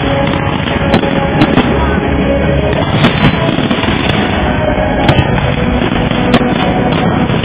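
Fireworks display: a loud, continuous din of shells bursting, with sharp cracks standing out every second or so.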